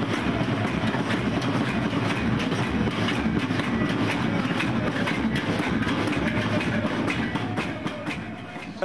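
A crowd playing an improvised drum band: frying pans, pot lids, plastic buckets and small hand drums struck with wooden spoons and hands, a dense, ragged clatter of many strikes at once that dies down near the end.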